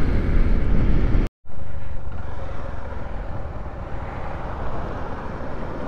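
Motorcycle riding: the engine running under a steady rush of wind noise. It cuts out completely for a split second about a second in, then carries on a little quieter.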